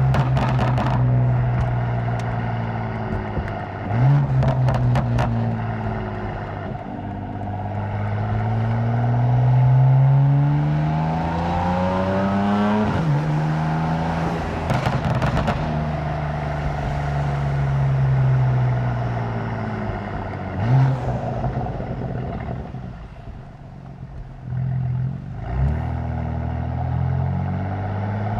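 Tuned BMW M4's twin-turbo inline-six exhaust pulling up through the revs and shifting, its pitch rising and falling again and again. Several bursts of rapid exhaust pops and crackles come on the overrun, loud with the windows down.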